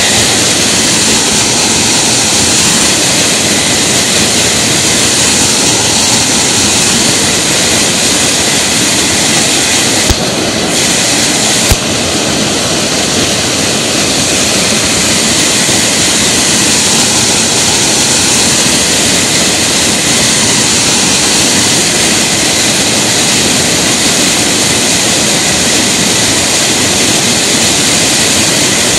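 Waterfall rushing steadily, a loud, even wash of noise from low to very high pitches. Two short clicks cut in about ten and twelve seconds in.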